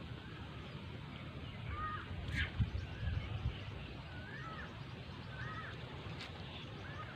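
Birds calling: short, arching whistled notes repeated every second or so, over a low rumble, with a knock about two and a half seconds in.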